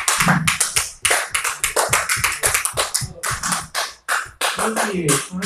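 A small audience clapping, a dense run of irregular claps that thins out briefly about four seconds in, with some voices or music faintly underneath.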